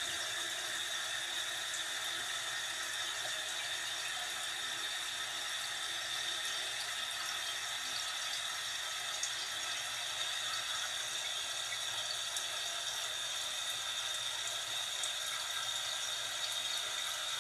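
Toilet tank refilling through a newly fitted universal fill valve after a flush: a steady hiss of running water with a faint high whistle.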